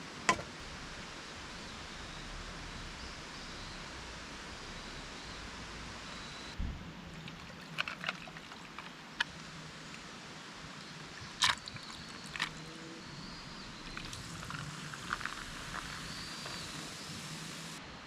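Steady hiss of a small stream flowing, with a few sharp clicks and faint short chirps over it.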